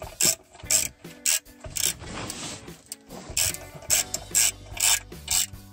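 Ratchet wrench clicking as it tightens the clutch cover bolts onto the flywheel, in irregular strokes of a few clicks a second.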